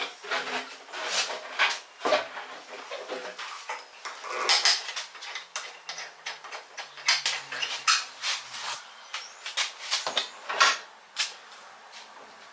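Irregular metal clinks and clatter, many sharp knocks in quick succession with brief pauses between, as of hand tools or small metal parts being handled.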